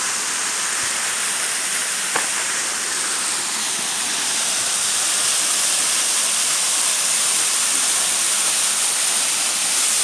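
Waterfall water rushing in a steady, dense roar of noise, with one short click about two seconds in.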